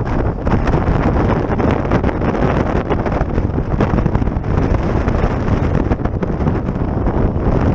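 Steady, loud wind buffeting the microphone over the rush of water along the hulls of a Multi 50 trimaran sailing at high speed.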